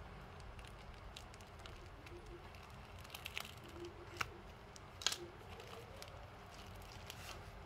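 Faint rustling and crinkling of a plastic mailing bag being slit open with a knife, with a few short crackles and clicks about halfway through.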